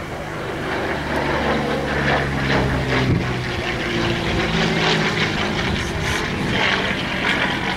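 Curtiss P-40 warbird's liquid-cooled V-12 engine and propeller droning as the plane flies overhead, swelling louder during the first few seconds as it closes in.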